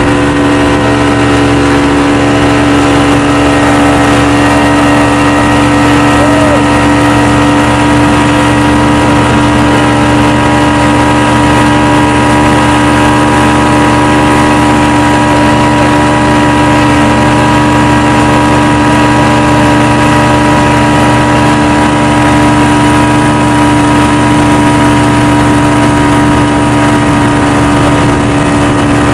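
Yamaha Enduro two-stroke outboard motor running at a steady throttle while towing a banana boat, with water rushing past the hull. The engine note holds constant.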